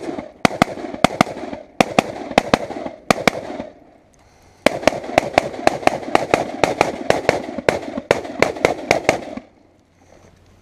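AR-15-style semi-automatic rifle firing rapidly, about three shots a second, in two strings with a pause of about a second between them, stopping about a second before the end.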